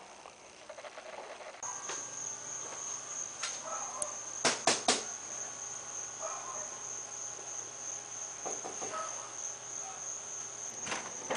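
A steady, high-pitched insect trill, like a cricket, starts abruptly a little way in and holds one pitch. Three quick sharp knocks come close together about halfway through.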